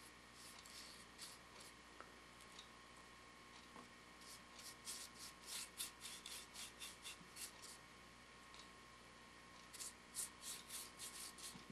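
Small bristle paintbrush scrubbing over the textured, wood-burned scales of a carved wooden snake while paint is applied. It goes in faint runs of quick short strokes, about four a second, the busiest a third of the way in and again near the end.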